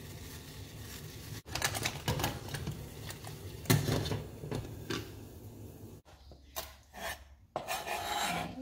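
Clinks and knocks of a stainless saucepan and its glass lid on a gas stove, over a steady hiss. Then, after a break, a kitchen knife tapping on a plastic cutting board.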